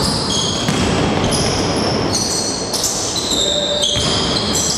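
Basketball game on a wooden gym floor: sneakers squeaking again and again over a steady din of footsteps and ball bounces, echoing in the hall.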